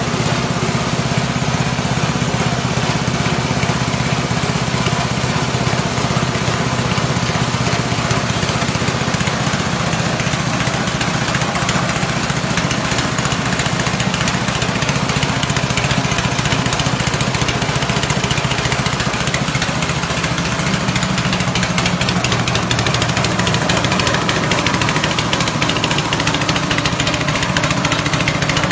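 Rice-husk grinding machine running steadily under its engine, a loud, even mechanical drone with a continuous grinding noise over it.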